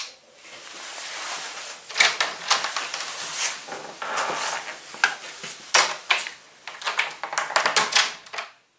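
Irregular clicks, knocks and rustling of lights being switched off: the pull chain on a hanging shop light, then a wall light switch. The sounds stop abruptly near the end.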